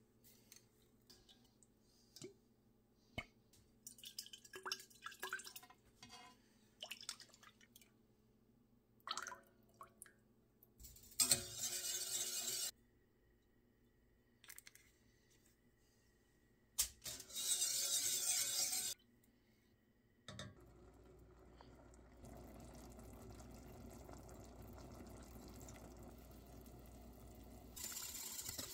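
Kitchen sounds around a stainless steel saucepan of barbecue sauce: drips and small clinks, then two loud rushing noises of about two seconds each. From two-thirds of the way through, a steady low hum carries on.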